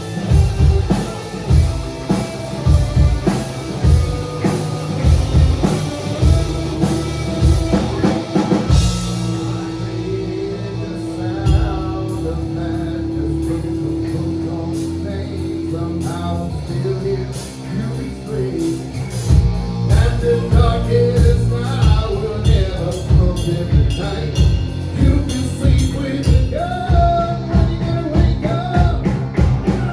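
A rock band playing live, with drum kit and singing. Roughly a third of the way in the drums drop back under held notes for about ten seconds, then the full band comes back in.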